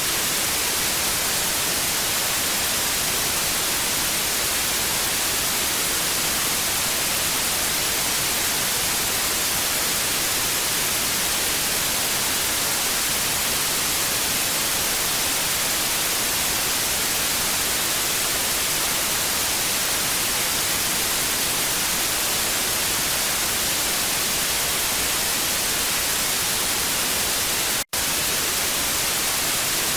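Television static: a steady hiss of even noise, brightest in the treble. It cuts out for an instant near the end.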